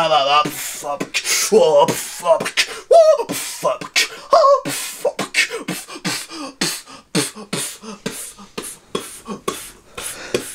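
A man beatboxing with a hand cupped over his mouth: wavering vocal tones in the first half, then a quick run of percussive mouth clicks and hisses, about three a second.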